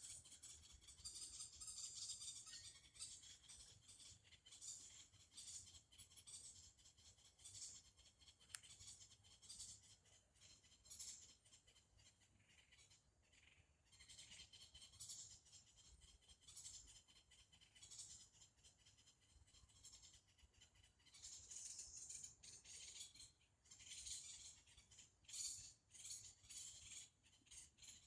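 Faint, high-pitched chorus of insects, a dense chirring of many quick pulses that swells and fades, louder at the start and again in the last few seconds.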